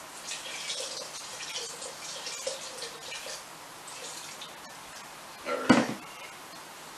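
Beef stock poured slowly into a stainless steel pot of stew while it is stirred: liquid trickling and splashing, with small clinks. One loud knock comes a little before the end.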